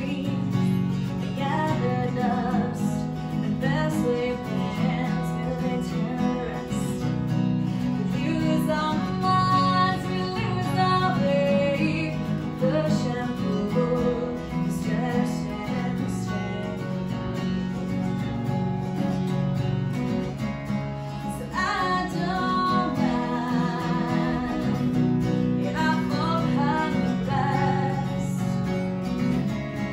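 A woman singing solo while playing an acoustic guitar, with some long held notes sung with vibrato.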